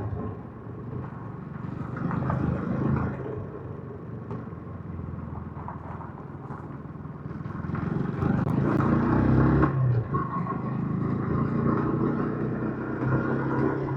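Yamaha MT-15's 155 cc single-cylinder engine running through its stock exhaust while riding. It revs up and gets louder about eight seconds in.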